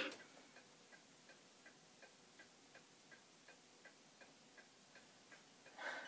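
Antique mantel clock ticking faintly and steadily, a little under three ticks a second.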